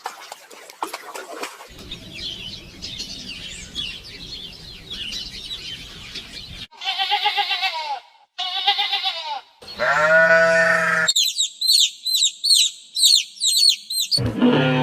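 Livestock bleating: two quavering bleats about halfway through, then a lower, longer call. Faint chirping comes before them, and a quick run of high, repeated chirps follows near the end.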